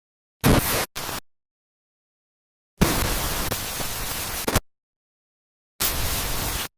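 Bursts of harsh static noise that cut on and off abruptly, with dead silence between them. There is a short burst about half a second in, then a shorter one, a longer burst of nearly two seconds about three seconds in, and another short burst near the end.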